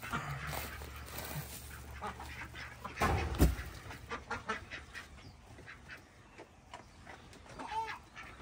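Domestic ducks quacking now and then, with one clear call near the end. A loud thump about three seconds in and low rumbling and rustling noise on the microphone come from handling while the person moves along the pen.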